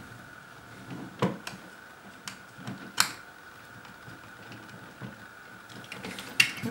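Light clicks and taps of the plastic housing and wiring of a shaver cleaning station being handled during reassembly, with two sharper clicks about a second in and about three seconds in.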